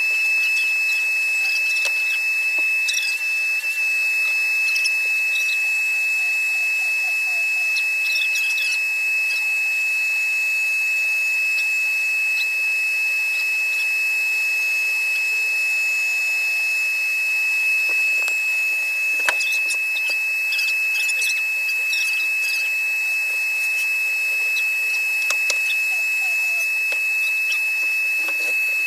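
A steady high-pitched tone held without change, with faint scattered clicks and scrapes under it.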